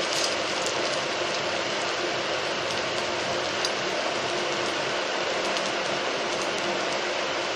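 Appe batter and ghee sizzling steadily in an appe pan over a gas flame, with a low steady hum underneath.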